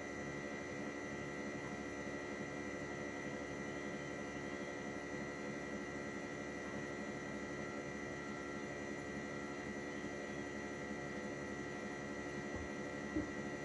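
Hitachi 1-ton split air conditioner's outdoor unit running: a steady compressor and fan hum with a constant high whine, and one short knock near the end.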